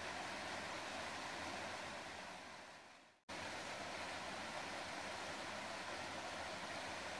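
Steady rush of flowing water. It fades out from about two seconds in to a moment of silence just after three seconds, then cuts straight back in at full level, as at a loop or edit join.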